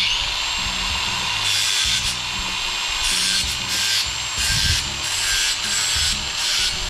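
Cordless angle grinder spinning up and cutting through chicken wire. A steady high whine comes from the disc, with rasping surges about twice a second as it bites through the wire strands.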